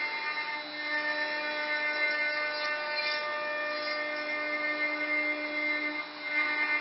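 CNC router spindle running steadily with its tilted cutter machining a curved profile into a wood panel, a whine of several steady tones over cutting noise. The sound dips briefly about six seconds in, then comes back louder.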